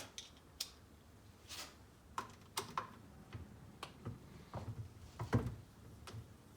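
Irregular light clicks and taps of hand tools and small screws and bolts being handled while the fan shroud is unbolted from an RC car's two-stroke engine, with the sharpest click near the end.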